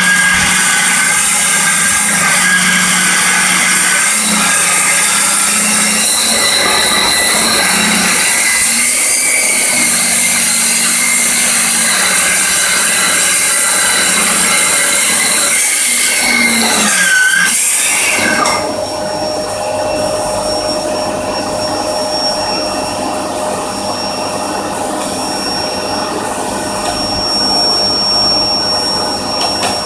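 Homemade table-mounted circular saw cutting a board, with a vacuum cleaner drawing the debris off through a suction hood over the blade. About 18 seconds in, the cutting sound ends and the level drops, leaving a steadier hum with a high whine.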